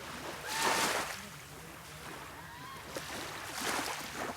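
Water washing in two hissing surges, about a second in and again near the end, with a few short arched bird calls in between.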